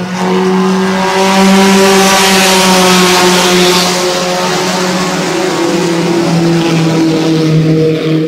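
Race car passing at speed on the circuit, its engine held at high revs with a steady buzzing note. It is loudest a second or two in, and the pitch sags a little as it moves off.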